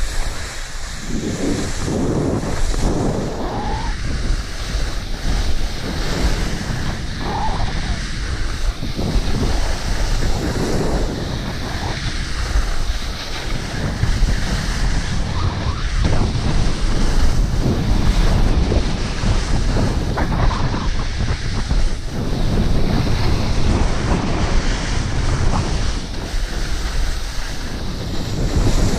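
Wind buffeting the microphone of a camera carried downhill on skis, a loud steady rush with a heavy low rumble, with the swish and scrape of skis carving turns on packed snow.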